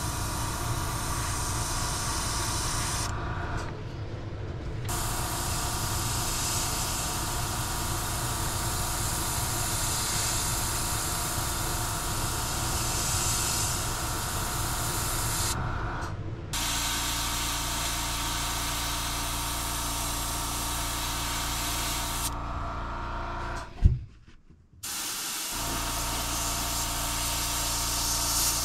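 Airbrush spraying black paint at about 20 PSI with a steady hiss that stops and restarts a few times as the trigger is let off, over the steady hum of its air compressor. A sharp click near the end is followed by a second of near silence.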